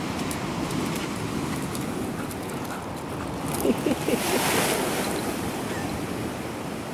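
Sea surf washing against the rocky shore, with wind rumbling on the microphone. About halfway through come a few short squeaky cries, followed by a brief rush of hiss.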